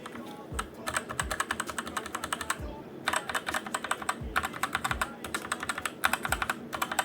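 Typing on a Redragon Kumara mechanical keyboard fitted with red linear switches and new keycaps. Rapid runs of key clicks come in about five bursts with short pauses between them, and a few deeper thuds fall under the clicks.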